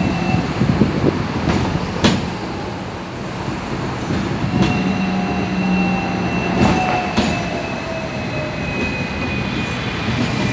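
Tram running along the street, heard from inside the car: a steady rumble and rattle with a few sharp clacks, and a thin whine that slowly falls in pitch over the second half.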